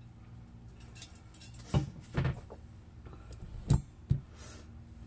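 Four short knocks and bumps of the camera being handled and moved, the loudest about three and a half seconds in, over a low room hum.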